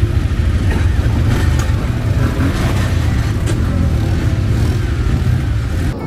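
Several ATV engines running close by, a loud steady low rumble.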